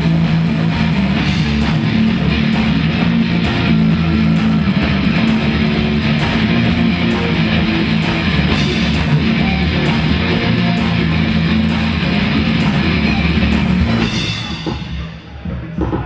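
Live rock band playing: electric guitar and bass guitar over a drum kit, full and steady, dropping about fourteen seconds in to a quieter, sparser passage.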